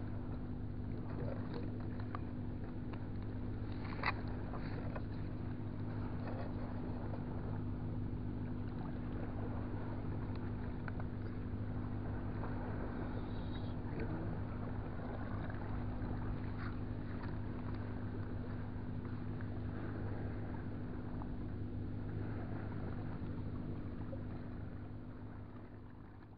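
Steady low drone of a running engine, holding one even pitch, with a few faint clicks over it; it fades away near the end.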